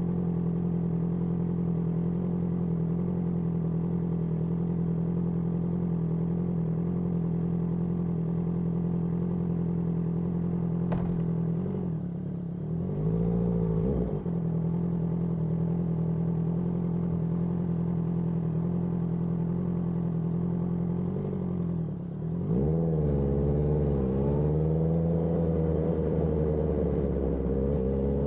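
Honda CBR650R inline-four with an IXIL IXRACE aftermarket exhaust, running at a steady engine speed for about half the time. It gives a short rev that rises and falls, runs steady again, then accelerates about two-thirds of the way in, its pitch rising and dipping through gear changes and climbing toward the end.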